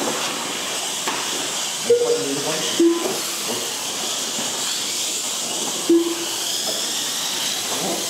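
Several Mini-Z 1:28-scale electric RC cars racing on a tiled mat track, their small motors and tyres making a steady high-pitched hiss and whine. A few brief louder blips come through about two, three and six seconds in.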